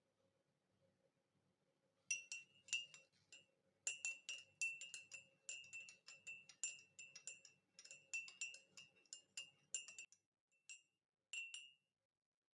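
A teaspoon stirring a drink in a cup, clinking rapidly against the side, each clink ringing at the same bright pitch. The clinking starts about two seconds in and stops near the end after a couple of last taps.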